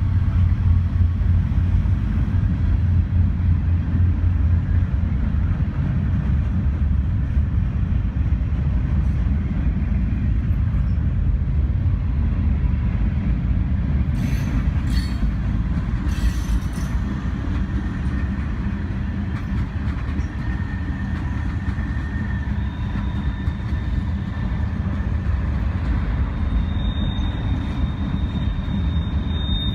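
CSX freight train's cars rolling past: a steady low rumble of steel wheels on rail. A thin, high wheel squeal comes in during the second half.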